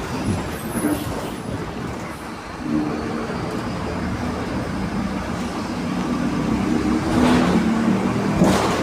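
Mercedes-Benz LO 916 bus with its 4.8-litre four-cylinder OM924 LA diesel running, its differential growling as a steady whine that sets in about three seconds in. Two short rushes of noise come near the end.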